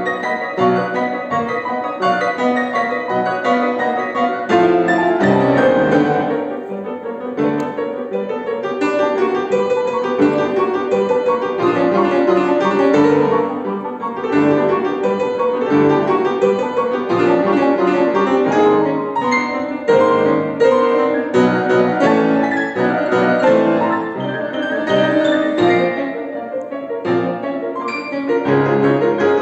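Piano six hands (three players at one piano) playing a classical piece in busy, quick-moving passages with many high, twittering figures imitating birdsong.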